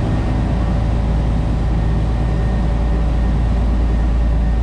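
Steady low drone of a party boat's engines running underway, heard inside the galley: an even hum with many steady tones that does not change.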